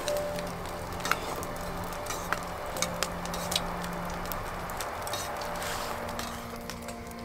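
Metal chopsticks and utensils clinking sharply against a stainless steel pot and cups, about six times in the first half, over a steady hiss.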